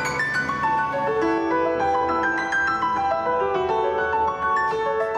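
Background piano music: a melody of single notes stepping up and down.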